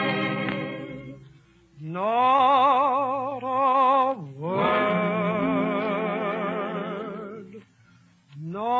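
A vocal group sings a slow spiritual in close harmony. The long, held chords have vibrato and come in phrases of two to three seconds, with brief breaks between them. The sound is thin and narrow, as on an old 1940s radio transcription.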